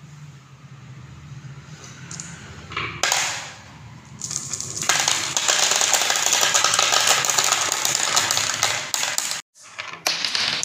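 Many small balls rolling and clattering together down a grooved wooden (fibreboard) marble track: a dense rattle of countless small knocks lasting about five seconds that cuts off abruptly. A single knock comes about three seconds in, before the rattle. A few separate clicks of marbles being set in place follow near the end.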